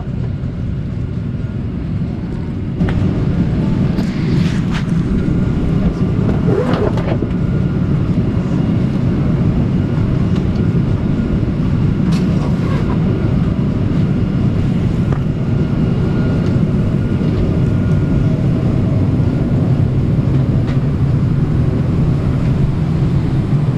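Steady low hum of a parked Boeing 737-800's cabin air-conditioning, growing louder about three seconds in. A few short knocks and clicks from luggage and overhead bins sit on top.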